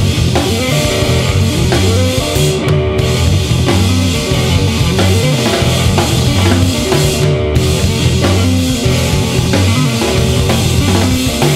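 Instrumental math-punk trio playing live: electric guitar, bass guitar and drum kit, with driving drums and busy guitar and bass lines.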